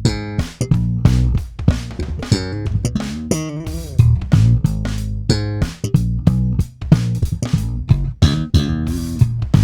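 Warwick Corvette $$ NT five-string bubinga electric bass playing a busy, funky line of single notes with sharp, percussive attacks, amplified.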